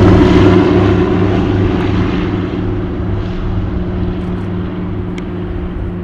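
Twin radial engines of a Douglas C-47 Dakota climbing out after take-off, a steady engine and propeller note that fades steadily as the aircraft flies away, its higher tones dying out first.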